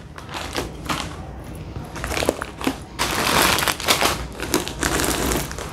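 Plastic grocery packets crinkling and rustling as they are rummaged through and pulled out of a cloth shopping bag, louder from about three seconds in.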